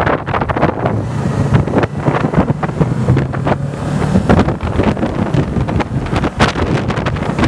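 Motorcycle engine running steadily while riding at around 50 km/h, almost buried under heavy wind buffeting on the microphone.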